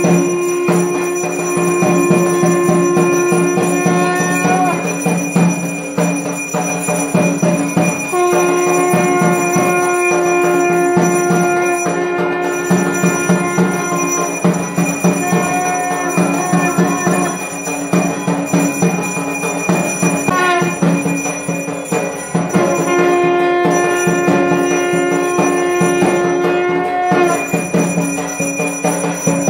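Temple aarti music: bells ringing rapidly and continuously, under several long held notes, each a few seconds long, that stop and start.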